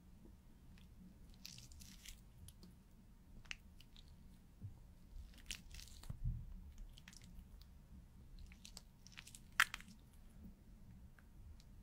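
Pen drawing on a clear sheet close to the microphone: soft, scratchy strokes at irregular intervals, with one sharper click late on.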